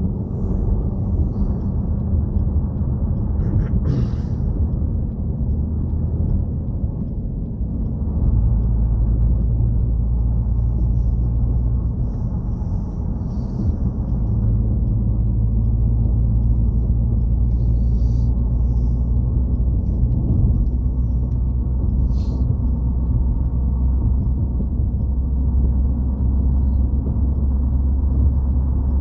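Steady low road rumble and engine drone inside a moving car's cabin, growing louder about eight seconds in.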